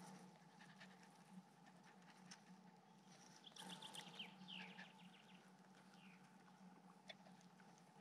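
Near silence on a forest path, with a faint animal call about halfway through: a quick run of short high notes, then a few sliding ones.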